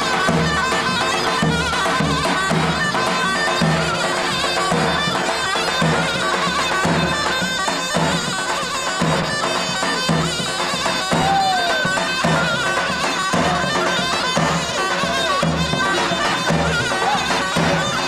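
Zurna, a shrill double-reed folk shawm, playing a continuous dance melody over the steady low beat of a davul bass drum.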